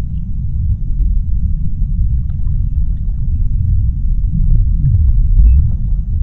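Deep-sea underwater ambience: a steady deep rumble, with a few short low tones sliding down or up in pitch and faint scattered ticks.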